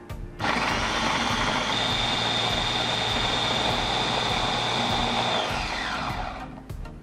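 Electric mini chopper running as it blends apple pieces with milk, a steady motor whine over the churning, starting about half a second in. Near the end the motor is released and winds down, its pitch falling away.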